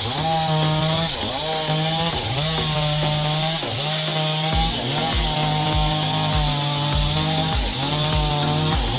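Chainsaw engine running at high revs, the pitch sagging and recovering about once a second as the chain bites into wood. About halfway through, a low regular thump begins, roughly twice a second.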